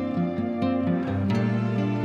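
Instrumental background music, with held chords and plucked string notes.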